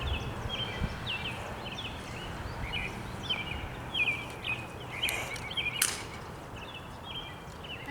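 Small birds chirping repeatedly, with two sharp snaps about five and six seconds in.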